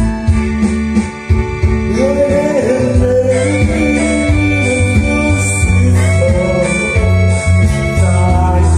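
A man singing into a microphone over backing music with keyboard or organ and a heavy, steady bass.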